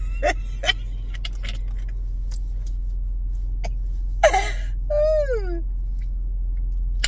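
Steady low hum of a car idling, heard from inside the cabin, with a few light clicks early on. About four seconds in, a brief voice sound with a falling pitch.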